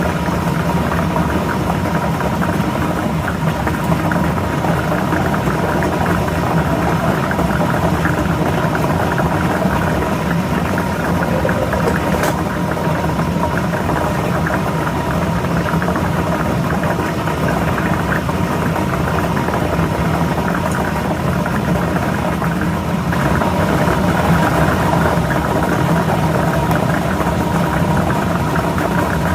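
Lotto ball drawing machine running: a steady motor or blower whir with balls rattling continuously as they are mixed.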